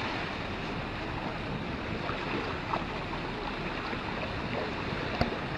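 Steady wash of ocean surf with wind on the microphone, and one sharp click about five seconds in.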